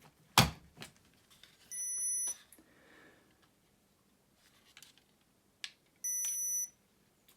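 A sharp click about half a second in, then two steady high-pitched electronic beeps, each just over half a second long and about four seconds apart, as power is applied to a just-repaired hair straightener and its temperature reading.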